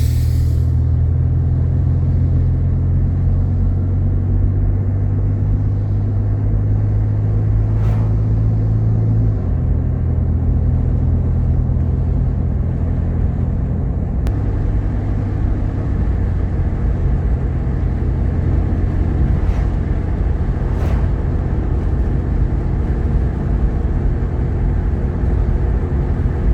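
Cabin drone of a Jeep Grand Cherokee's 3.7-litre V6 and road noise while driving, a steady low rumble. Its pitch shifts about nine seconds in and again about fourteen seconds in, as the engine speed changes.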